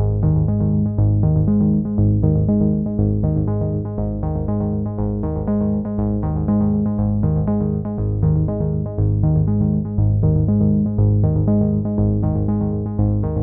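Synthesizer background music: keyboard notes played in a steady pulse of about four a second over low, held chords.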